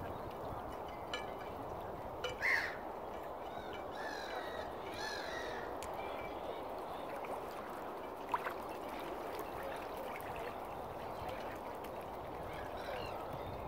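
Waterbirds calling from the water among mute swans, ducks and gulls: one short call about two and a half seconds in and a few more between four and five and a half seconds, over a steady background wash.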